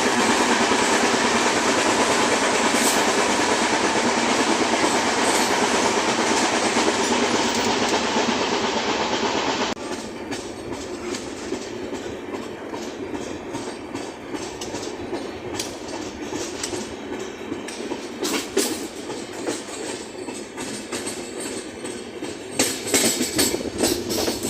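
Express train running along the track: a loud, steady rush of wheel and rail noise with clattering over the rail joints. About ten seconds in it drops abruptly to a quieter level, with scattered clicks and knocks.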